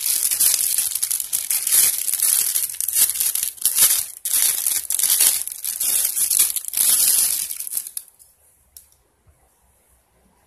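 Thin clear plastic bag crinkling loudly as a model kit's plastic parts sprue is pulled out of it, with many quick crackles; it stops suddenly about eight seconds in, followed by a single light click.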